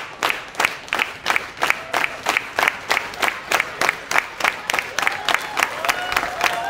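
A large crowd clapping together in a steady rhythm, about three claps a second. Near the end, voices begin to cheer over the clapping.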